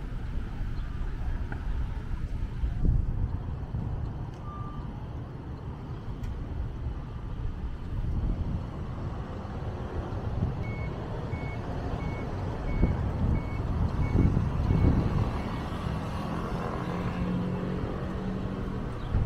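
Downtown street traffic rumbling steadily, with a string of about eight short, high electronic beeps a little over halfway through.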